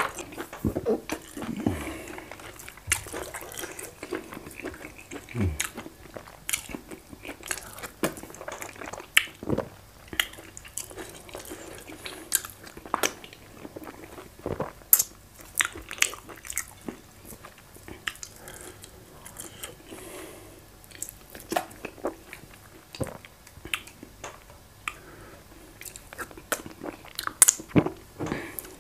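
Close-miked chewing and mouth sounds of a person eating fufu and vegetable soup with goat meat by hand: wet smacking and irregular short clicks, with a few louder smacks scattered through.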